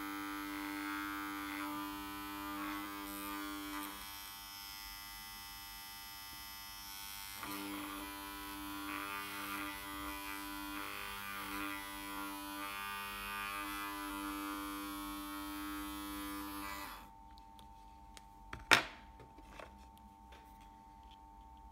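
Small iron-core DC motor, with a heavy rotor core of iron sheets, running at moderate speed on steady DC with a buzzing vibration noise. The noise comes from its imperfectly balanced rotor and strong rotor cogging. The motor stops about 17 s in, and a single sharp click follows a couple of seconds later.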